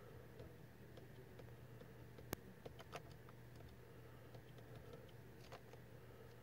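Near silence with a few faint clicks of the steering-wheel menu buttons being pressed, the sharpest about two seconds in, over a low steady hum.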